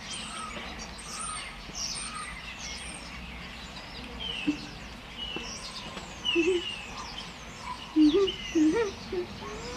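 Garden birds chirping and twittering throughout, with a few short, louder, low wavering calls in the last few seconds.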